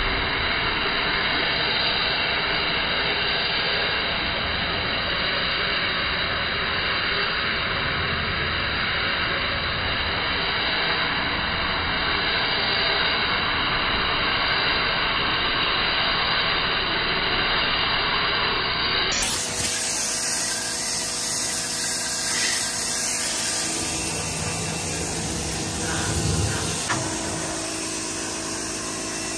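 Pressure washer running, its wand spraying water onto a concrete floor in a steady, unbroken noise. About 19 seconds in the sound changes abruptly to a different steady mechanical noise.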